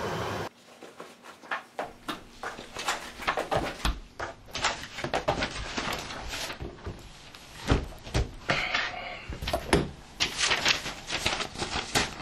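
Sheets of paper and a file folder being handled and leafed through on a desk: an irregular run of crisp rustles, flicks and light knocks. A steady outdoor hum cuts off suddenly about half a second in.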